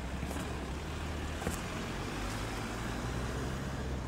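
Hyundai Tucson SUV driving slowly past and pulling away: a steady low engine and tyre rumble, with no siren sounding.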